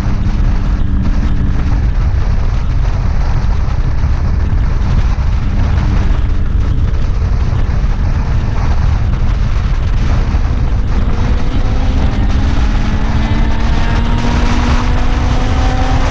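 Motorcycle on the move, with heavy wind rumble over the microphone. The engine note holds steady at first, then rises steadily in pitch from about two-thirds of the way through as the bike accelerates.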